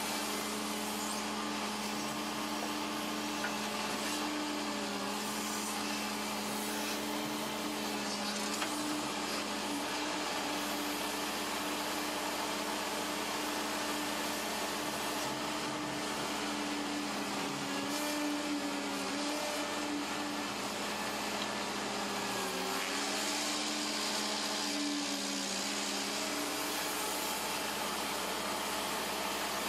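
Cat 309 CR excavator's C3.3B diesel engine and hydraulics running under load while it digs, a steady hum whose pitch dips and recovers a couple of times past the middle.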